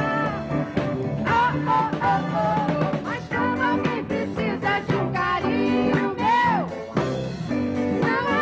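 Music: two women singing a duet with instrumental backing.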